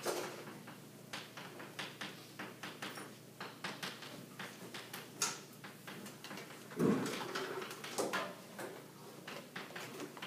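Chalk writing on a chalkboard: quick, irregular taps and scratching strokes as the letters are drawn, with a louder dull bump about seven seconds in.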